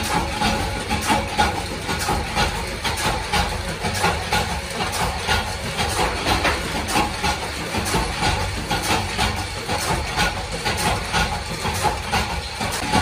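Steady running of workshop machinery with frequent short metallic knocks, as from mechanical power presses working in a small metal-stamping shop.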